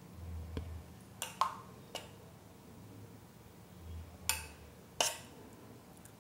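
A steel spoon clinking against a steel pot while scooping out thickened custard milk: about five sharp, short-ringing clinks in two groups, three about a second in and two more near the end, with soft low knocks between.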